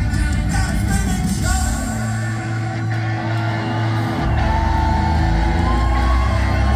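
Live rock band playing loud: electric guitars, synthesizer, bass and drums with a lead singer, heard from the audience in a large hall. The low end thins out for about two seconds midway before the full band comes back in.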